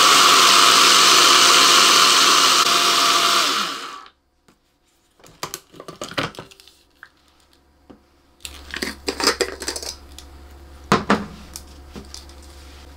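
Countertop blender running steadily at high speed, cutting off about four seconds in and spinning down. Clicks and knocks follow as the glass jar is worked off the motor base and set down on the counter, with a sharp knock about eleven seconds in.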